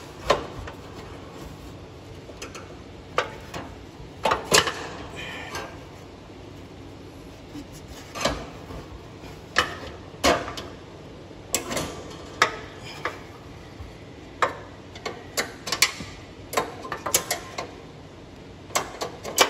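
Irregular metallic clinks and clanks of a steel hook tool against the transmission belt's tension spring and the tractor's steel frame as the spring is pulled through the frame and worked into its hole. The clinks come a second or more apart and bunch together in the last few seconds.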